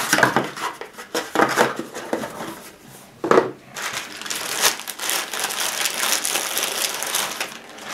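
A clear plastic bag crinkling and rustling as it is handled and the knife is taken out. There are a few sharp knocks in the first few seconds, and steady rustling through the second half.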